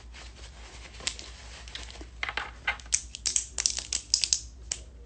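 Fingernails tapping and clicking on a phone's touchscreen in quick, irregular taps, sparse at first and coming thick and fast from about two seconds in.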